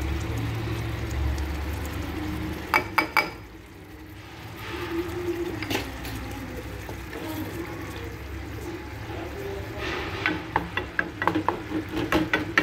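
Tomato sauce poured into a saucepan of olive-oil-fried cherry tomatoes, frying with a steady sizzle. There are a few sharp knocks about three seconds in, and from about ten seconds in a wooden spoon taps and scrapes quickly against the pan as the sauce is stirred.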